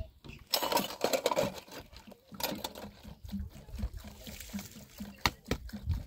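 Washing dishes by hand with water from a plastic jerrycan: water pouring and splashing, with many sharp clinks and knocks as the dishes and a plastic basket are handled.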